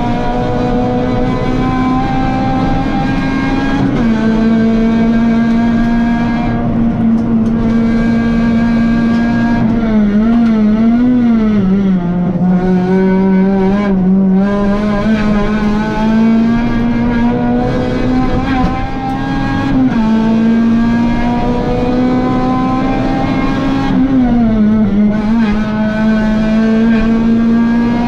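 Honda Civic Type R four-cylinder race engine at high revs, heard from inside the stripped, caged cabin. Its pitch climbs slowly, drops sudden steps at gear changes, and wavers and falls about ten to thirteen seconds in as the car slows for a corner.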